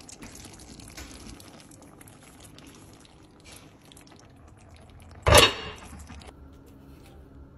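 Cooking sounds from a pan of food: a faint bubbling hiss with small ticks, broken a little over five seconds in by one sudden loud burst that fades within about a second; the hiss stops soon after.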